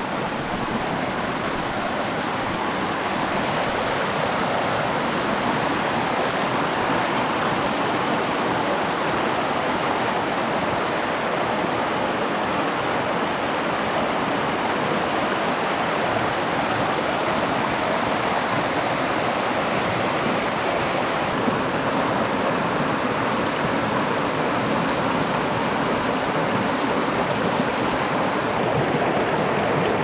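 Shallow rocky stream rushing and splashing over boulders in small rapids, a steady loud rush of water.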